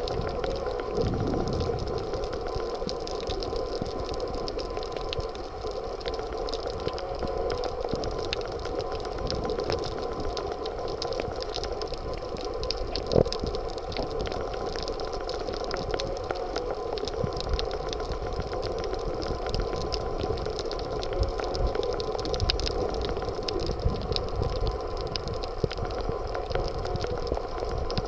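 Underwater ambience picked up by a submerged Olympus TG-810 waterproof compact camera: a steady, muffled rushing noise with a thin steady tone and scattered small clicks. One louder click comes about 13 seconds in.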